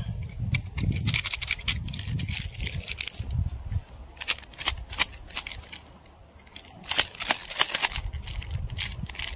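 Small wood fire crackling under a cooking pan, with sharp snaps in clusters about a second in, near the middle and again near the end. A low, uneven rumble of wind on the microphone comes and goes, dropping away in the middle.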